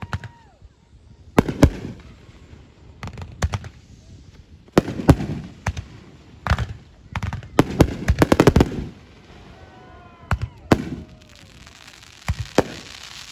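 Fireworks going off in a series of sharp bangs, one every second or so, with a rapid run of crackling reports about eight seconds in.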